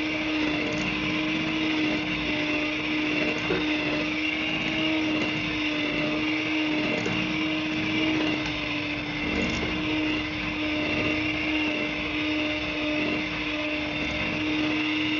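Cosmos electric hand mixer running at one steady speed, a constant motor hum, its beaters churning through thick cookie dough in a glass bowl. The dough is being beaten until evenly mixed.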